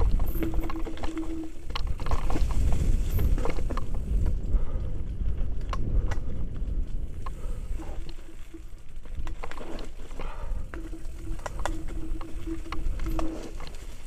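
Mountain bike descending a rocky, leaf-strewn trail, heard from a helmet camera: tyres crunching over stones and dry leaves, the bike rattling and clicking over bumps, and wind rumbling on the microphone. A steady buzzing tone comes and goes, at the start and again through most of the second half.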